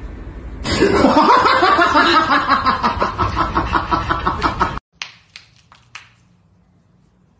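A person laughing loudly in quick, repeated bursts for about four seconds, cut off suddenly. A few faint clicks follow.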